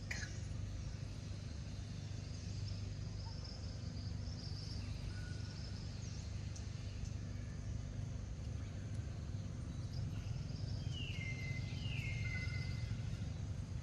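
Outdoor ambience: a steady low rumble with faint high chirps. About eleven and twelve seconds in come two short calls that fall in pitch.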